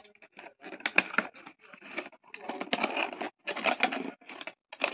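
Cardboard boxes being handled and pulled apart: irregular rustling and scraping of cardboard, with a few sharp knocks, the loudest about a second in.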